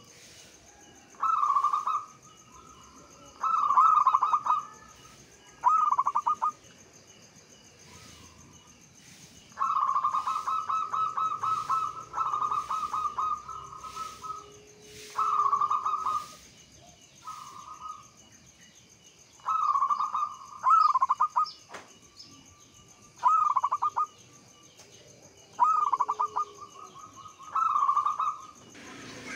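Zebra dove (perkutut) cooing: about a dozen short, rapid staccato phrases, each a second or two long, repeated with brief pauses between them. A faint steady high tone hangs in the background.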